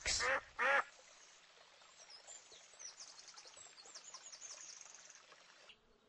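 Duck quacking twice in quick succession, the first quack a little longer than the second, in the first second.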